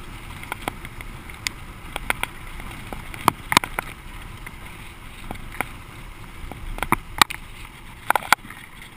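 Mountain bike rolling fast down a rough, cracked concrete trail: steady rolling and air noise with irregular sharp clatters and knocks as the bike jolts over the bumps, a few of them much louder.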